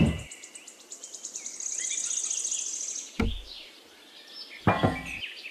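Outdoor ambience of small birds chirping, with a rapid high trill for the first few seconds and a few short low thumps.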